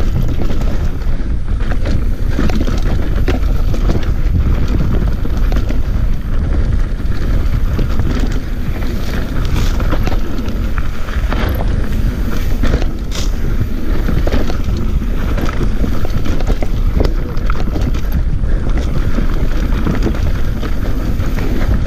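Mountain bike riding fast down a rough dirt trail: continuous wind buffeting on the microphone and tyre rumble, with frequent rattles and knocks as the bike jolts over rocks and steps.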